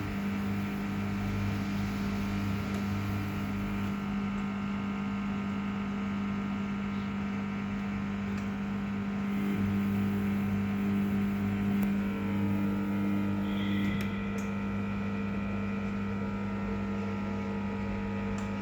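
Samsung WF0600WJV washing machine running a quick wash, its motor and drum giving a steady hum that grows a little louder about ten seconds in.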